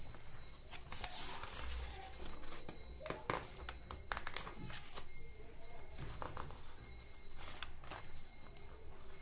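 Paper pages of a paperback book being handled and turned, rustling and crinkling with scattered small clicks.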